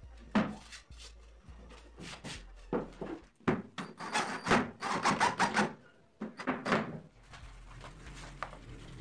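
Plywood panels being handled and worked: a run of uneven knocks and rubbing, scraping sounds, densest in the middle.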